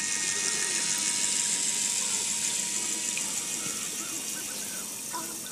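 Small DC motor and propeller of a plastic-bottle model boat running on the water: a steady hiss with a faint whine, slowly fading as the boat moves away.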